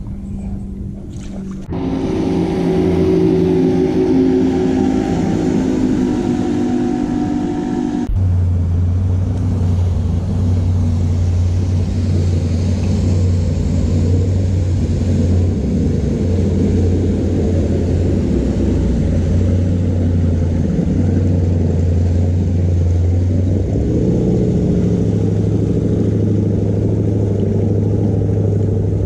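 Steady drone of a passing motorboat's engine, dropping to a lower hum about a quarter of the way in and briefly changing pitch near the end.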